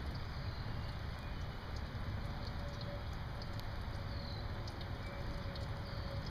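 Steady rain with wind buffeting the microphone, as a low rumbling noise, and faint scattered ticks of raindrops.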